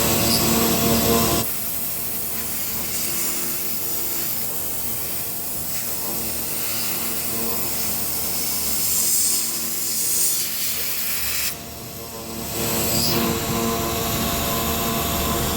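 CNC router spindle running as its bit carves MDF: a steady whine with cutting noise. It drops in level about a second and a half in and dips briefly once more a little past the middle.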